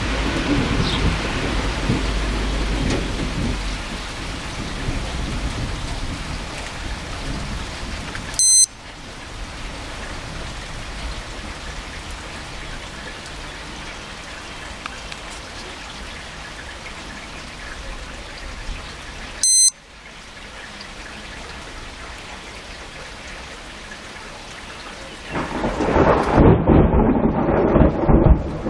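Thunderstorm: steady rain with rolling thunder, and a louder peal of thunder near the end. Twice, about eleven seconds apart, a short high electronic beep sounds, the lightning detector's alert.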